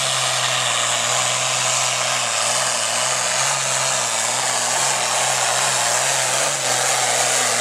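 Pro Farm class pulling tractor's turbocharged diesel engine running flat out under load during a pull. The engine note is steady and wavers slightly in pitch, over a loud exhaust and turbo rush.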